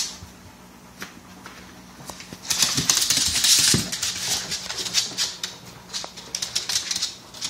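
A Pekingese's toenails clicking and scrabbling on a hardwood floor in quick, irregular taps as it dances excitedly, with a louder scuffling burst about two and a half seconds in.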